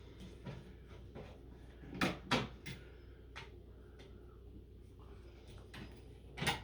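Small clicks and knocks of a damaged Decora light switch being worked loose and pulled out of a metal switch box, with a few sharp clicks about two to three seconds in and another near the end.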